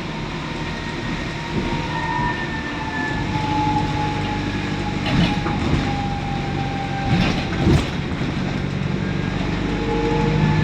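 ADL Enviro400 double-decker bus, converted to diesel, running: a steady engine drone with a whining tone that drifts in pitch, and a couple of knocks or rattles about seven seconds in.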